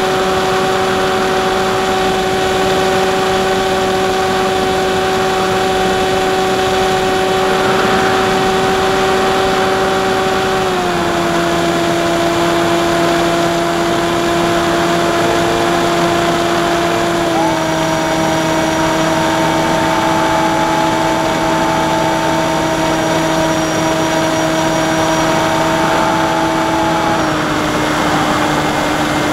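Onboard recording of the AXN Floater Jet's electric pusher motor and propeller in flight: a steady whine over rushing airflow, its pitch stepping down slightly three times as the throttle is eased back.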